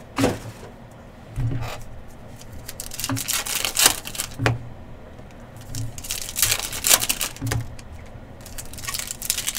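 Plastic wrapping of a sealed trading-card box being torn and crinkled off, and the cardboard box being opened and handled. There are scattered sharp clicks and knocks, with two longer stretches of rustling.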